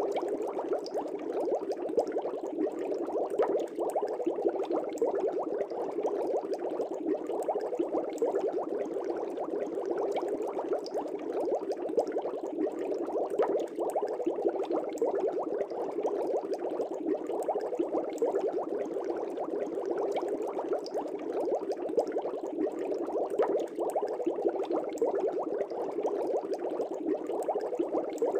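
Air bubbles rising steadily through the water of a fish tank, a continuous dense bubbling with many small pops.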